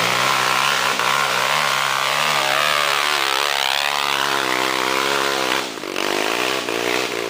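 Dirt bike engine revving hard up close while climbing a steep dirt trail, its pitch rising and falling with the throttle. It drops off for a moment near the end, then pulls again.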